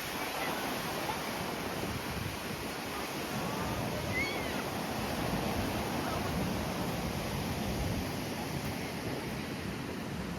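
Strong wind rushing across the microphone, mixed with the wash of surf: a steady noise that rises and falls slightly.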